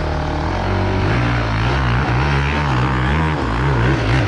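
Enduro dirt bike engines running, with their revs wavering up and down under small throttle changes; more than one engine is heard at once.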